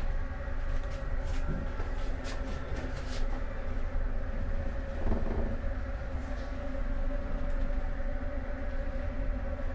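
Steady low drone of a ferry's engines and hull vibration heard inside the ship, with a constant hum. A few light clicks about one to three seconds in and a short knock about five seconds in.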